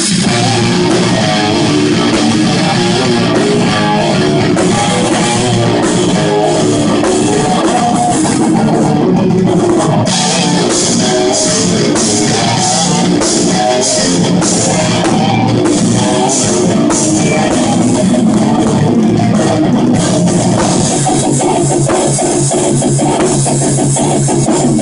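A metal band playing live and loud: distorted electric guitars, bass guitar and a drum kit, at a steady high level with no break.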